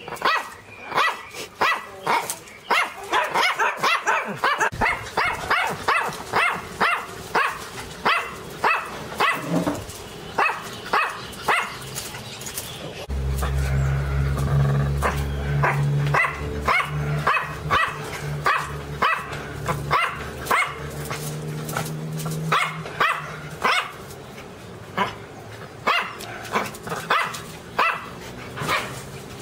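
Small Miniature Pinscher barking over and over in sharp, high, rapid barks, about two to three a second. A steady low hum runs under the barking for about ten seconds in the middle.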